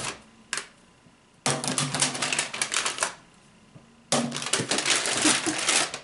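A paper bag crinkling with plastic eggs clacking inside it as a hand rummages through it, in two bursts of about a second and a half each, with a single click about half a second in.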